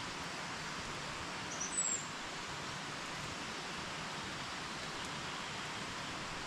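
Steady, even hiss of outdoor background noise, with one brief high bird chirp just under two seconds in.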